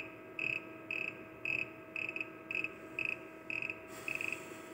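A short, high, buzzy chirp repeating evenly about twice a second, over a steady electrical hum.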